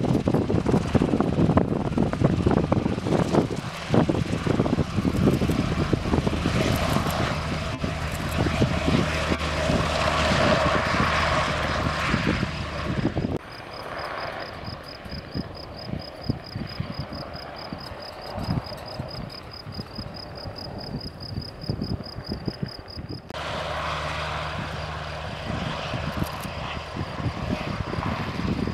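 Sikorsky S-70i Black Hawk helicopter running close by, its rotor and twin turboshaft engines making a loud steady noise. About halfway through it cuts abruptly to a quieter, more distant helicopter, with a high, rapidly pulsing insect trill on top. Near the end it cuts back to the loud close rotor noise.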